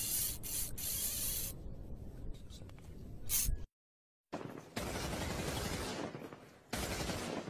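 Sound effects for a glitching logo intro: bursts of hissing, rushing noise that start and cut off abruptly, with a complete drop-out of about half a second midway and a short final burst near the end.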